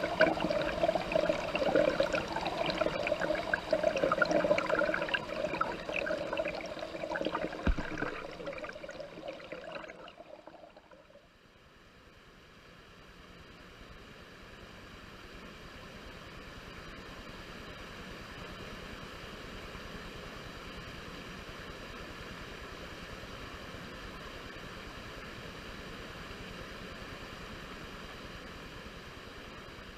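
Waterfall water rushing and splashing, loud and uneven for the first ten seconds, with one sharp click near eight seconds. It fades away, then a softer, steady rush of falling water fades in and holds.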